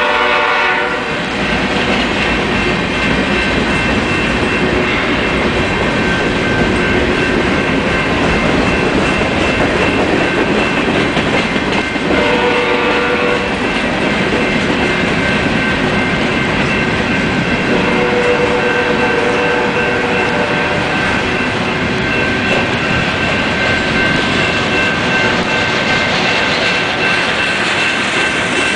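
Union Pacific freight train rolling past: a mid-train pair of diesel locomotives and then a long string of freight cars, a steady loud rumble and clatter of wheels on the rails, with thin high steady tones above it.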